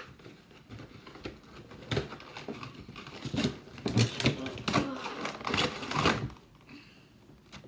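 Cardboard and plastic packaging of a Pokémon card box being torn open and handled: a run of irregular crackling and tearing sounds that dies away a little after six seconds in.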